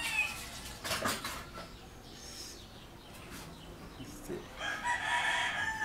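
A rooster crowing once near the end, a call of about a second. A brief knock about a second in.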